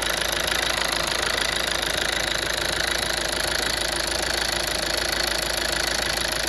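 Toyota Avensis D-4D four-cylinder diesel engine idling steadily while its newly replaced number 2 injector pipe is checked for leaks.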